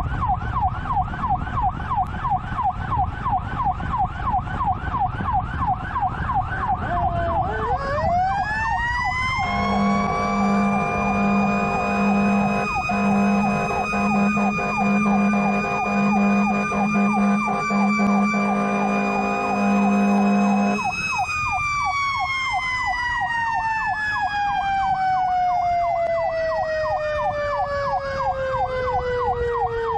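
Fire truck siren running in a fast yelp. About eight seconds in, a second siren tone rises to a steady high wail, held for about ten seconds with repeated short horn blasts under it. The wail then slowly falls in pitch while the fast yelp carries on, over the truck's road rumble.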